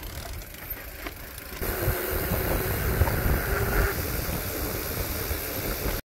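Mountain bike riding down a dirt trail: tyre and bike noise with wind buffeting the microphone, growing louder about a second and a half in.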